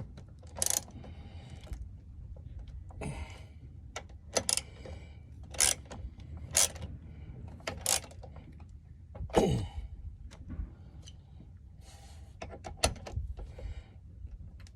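Hand tools tightening the fittings of a new battery terminal clamp: scattered sharp metallic clicks and knocks about a second apart, with a short falling squeak about nine seconds in.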